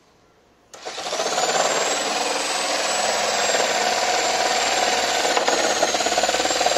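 Yuri JS70L 710 W electric jigsaw switched on under a second in and cutting into a thick 1.25-inch wooden plank at speed setting 3 with the pendulum action off: a loud, fast chatter of blade strokes with a thin high whine above it. At this low setting the saw has a little trouble with the cut.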